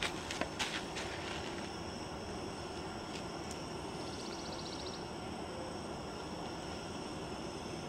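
Steady rushing hiss of a propane camp-stove burner heating a coffee percolator, with a few sharp knocks in the first second as wood in the fire pit is handled.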